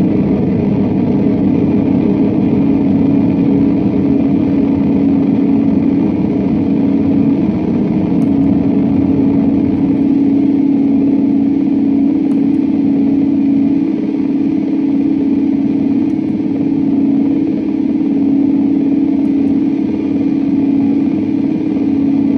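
Electric guitar heavily processed through chained effects pedals, producing a dense, steady, engine-like drone: a thick rumbling texture under one strong held low note.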